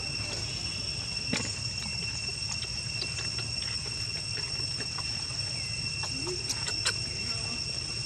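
Insects droning steadily in two high, unbroken tones, with scattered soft crackles of dry leaves underfoot as monkeys move on the leaf litter, over a low rumbling background.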